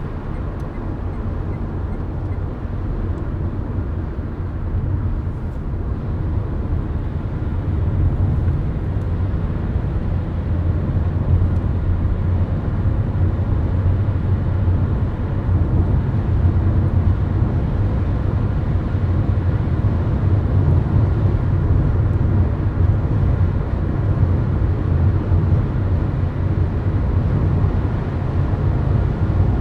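Steady low rumble of a car cruising at highway speed, tyre and road noise with engine drone, as heard from inside the cabin. It grows a little louder over the first several seconds, then holds steady.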